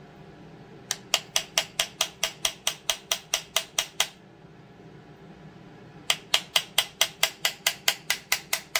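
Small hammer tapping quickly on a 9/16 socket used as a seal driver, pressing a new crankshaft seal into a Stihl MS 200T chainsaw's crankcase. Two runs of about fifteen light, ringing metal-on-metal taps, roughly five a second, with a pause of about two seconds between them.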